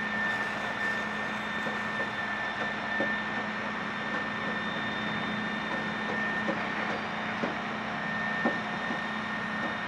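Steady city-street traffic ambience: an even background of vehicle noise, with a constant high tone and a low hum running through it and a few faint knocks.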